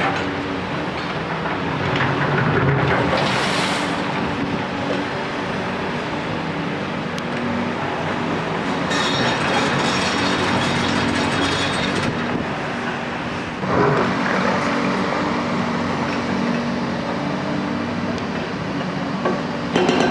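Hyundai hydraulic crawler excavators working concrete demolition rubble: steady diesel engine running under continuous clanking and scraping, with a stretch of rapid rattling in the middle and a sudden louder clatter about two-thirds through.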